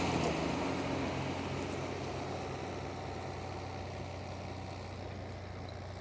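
Ford TW-35 tractor's diesel engine running steadily under load as it pulls a Howard chisel plough through the soil, fading slowly as the tractor moves away.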